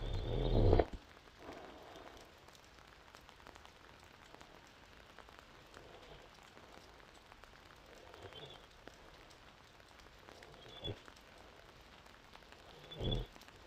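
A woman, five months pregnant, snoring in deep sleep: one loud snore in the first second, then fainter snoring breaths every two to three seconds near the end.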